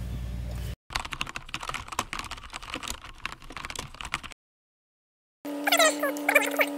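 Rapid keyboard-typing clicks, a typing sound effect for on-screen text being typed out, lasting about three and a half seconds. Before it, an idling engine's hum cuts off abruptly within the first second; near the end a steady hum with wavering higher tones begins.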